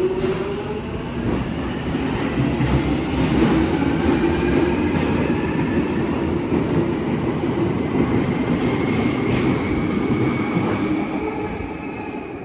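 London Underground 1996 Stock electric train pulling out and accelerating away: wheel and track rumble with the traction motors' whine slowly rising in pitch, fading near the end as the train leaves.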